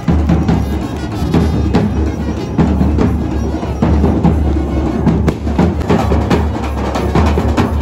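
Drum-heavy music: rapid, dense drum strokes over a constant deep bass.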